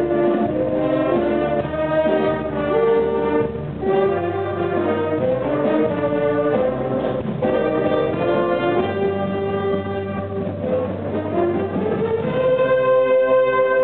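Youth jazz band of saxophones, trombones and trumpets playing together, moving through many changing notes and settling into a long held chord near the end.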